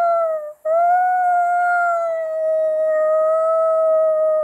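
A woman imitating a whale call with her voice, a really high hooting "oooo". One held note ends about half a second in, and after a short break a second long note follows that sinks slightly in pitch.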